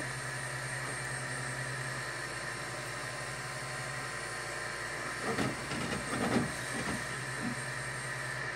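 Dual-extruder 3D printer running a print: steady cooling-fan hum and stepper-motor whine as the head moves. Between about five and seven seconds come a few louder, irregular rattling jolts, the head shuddering, which the owner blames on firmware acceleration settings being ignored.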